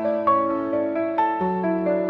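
Background music: gentle piano notes played in a steady flowing pattern over a held bass.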